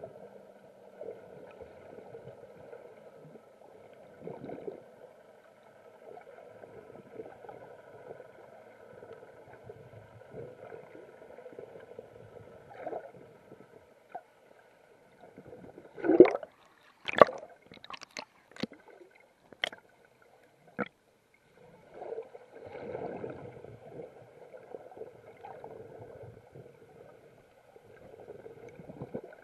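Muffled underwater sound picked up by a camera held below the surface: a low, uneven wash of water with a faint steady high hum. About halfway through comes a burst of sharp clicks and knocks, the loudest two close together.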